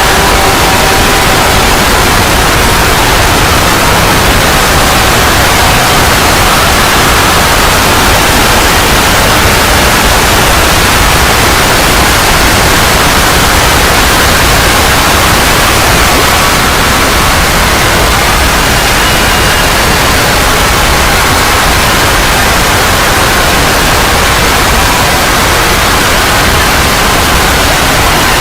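Loud, steady harsh static noise, with faint wavering tones showing through it during the first couple of seconds.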